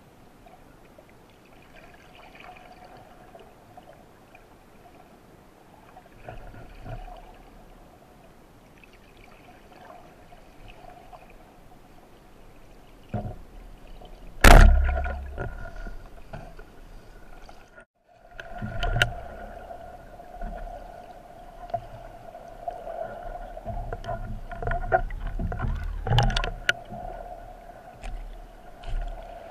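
Underwater sound recorded on a free-diving spearfisher's camera: water moving and rushing around the housing, with a faint steady hum. A single sharp, loud knock comes about halfway through, followed by a low rumble, and there are a few smaller clicks near the end.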